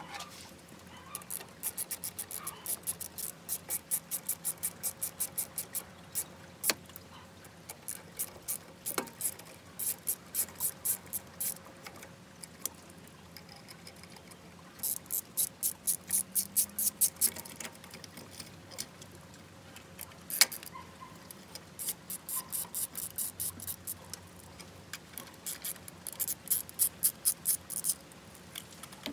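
Ratchet wrench clicking in quick runs of strokes, about five or six clicks a second, pausing between runs as bolts are worked loose or tightened, with a few single louder clicks of tool on metal.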